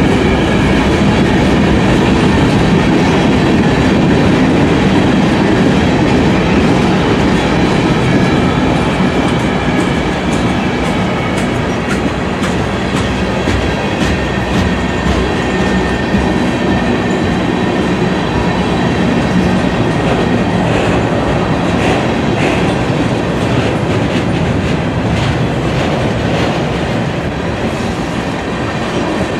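Freight train's cars (covered hoppers, tank cars and boxcars) rolling past close by: a steady rumble of steel wheels on rail, with the clickety-clack of wheels over rail joints coming through more clearly in the second half.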